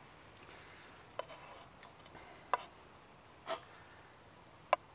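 Small knife dicing a red onion on a wooden cutting board: four separate sharp knocks of the blade against the board, about a second apart.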